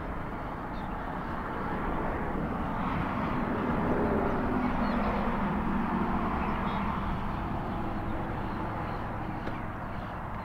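Road traffic noise: a passing vehicle's rush swells to a peak about four to six seconds in, then fades.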